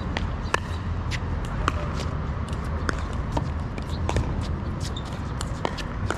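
Pickleball play: sharp pops of paddles hitting the plastic ball and of the ball bouncing on the court, two or three a second at irregular intervals, over a steady low rumble.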